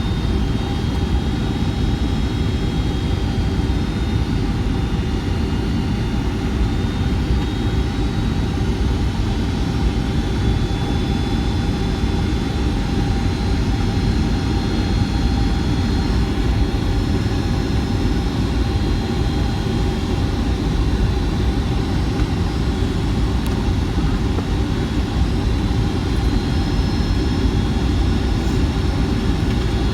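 Steady cabin noise inside a Boeing 757-200 on approach: a low, even rumble of airflow and engines, with faint steady high-pitched whine tones above it.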